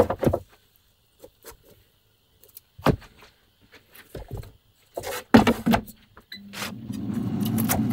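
Handling of a Cosori air fryer basket and the baked breads: scattered knocks, clicks and clatter as the basket is pulled and the breads are set down on a wooden board, loudest a few seconds in. A low steady hum comes up near the end.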